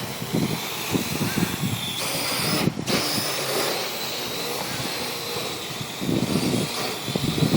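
Drone's electric motors and propellers whining, the pitch drifting as the throttle changes, under gusts of wind buffeting the microphone. The sound cuts out for an instant about three seconds in.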